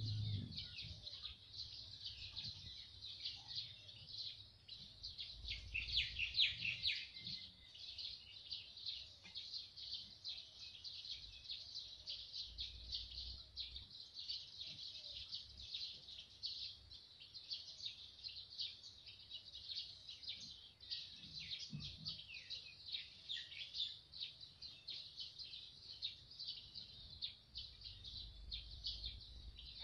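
Steady chorus of birds chirping rapidly and continuously, high-pitched, with a few soft low rumbles now and then.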